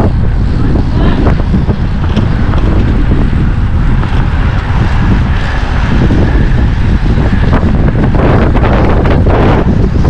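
Loud, steady wind buffeting the microphone of a camera on a cyclist racing at speed.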